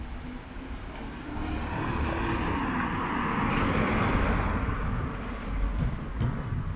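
A motor vehicle passing close by: tyre and engine noise swells up from about a second and a half in, peaks around the middle and fades away.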